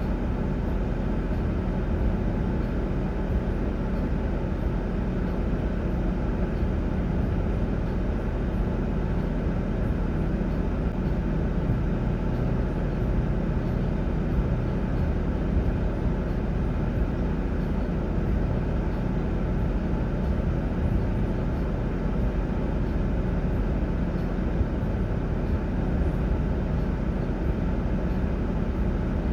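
Steady low rumble of a vehicle engine running, even and unchanging throughout.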